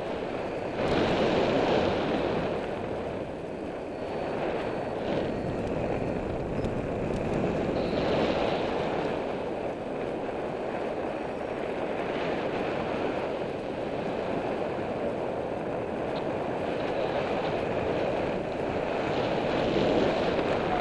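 Wind rushing over the camera microphone of a paraglider in flight, a steady roar that swells and eases.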